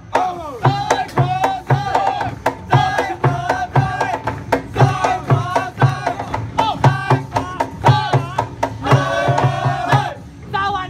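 Live kitchen-utensil percussion: a plastic barrel beaten as a bass drum and metal pots and pans struck in rhythm, with voices singing over the beat.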